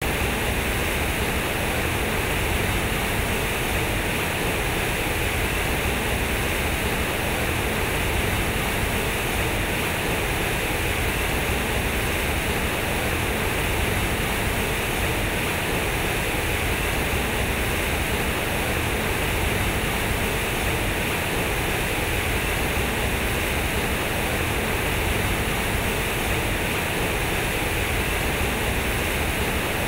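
Heavy streams of water pouring from the square concrete spouts of a large fountain and falling into its pool: a steady rushing splash that does not change.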